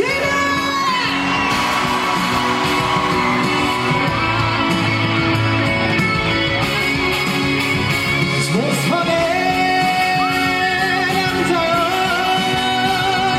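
Loud pop-trot music played through a venue PA, a lead melody over a steady backing band track, with audience members yelling and cheering near the start.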